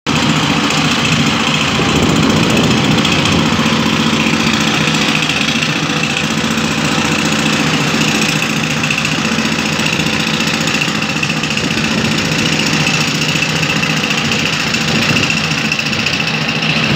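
Excavator-mounted down-the-hole (DTH) hammer drill running steadily, a rapid air-driven hammering of the bit into the ground over the excavator's running engine, with no let-up.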